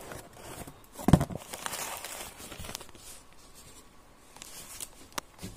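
Plastic wrap and cardboard packaging rustling and crinkling as it is handled, with a dull thump about a second in and a few sharp clicks.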